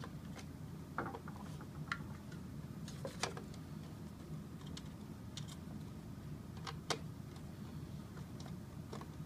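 Plastic parts of a Yonanas machine clicking and knocking together as the gearbox and front plate are fitted back into the housing by hand, with the sharpest knocks about three and seven seconds in, over a steady low hum.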